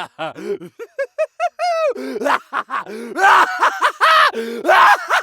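Theatrical evil laughter: quick rhythmic bursts of the voice, rising to a high-pitched cackle about a second in, then louder, fuller laughs in the second half.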